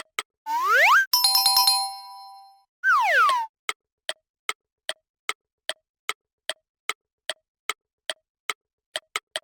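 Animation sound effects over a steady ticking beat of about two and a half clicks a second: near the start a rising slide tone, then a bright bell-like chime that rings and fades, then a falling slide tone.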